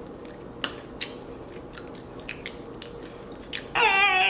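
Close-up chewing of tough, dry vegan soy jerky, with a few sharp crunches. Near the end a child's high-pitched voice cuts in loudly.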